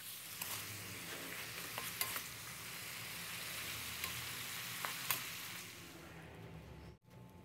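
Cabbage sizzling in hot oil in a wok while it is stir-fried with a wooden spatula, with a few sharp clicks of the spatula against the pan. The sizzle fades away about six seconds in.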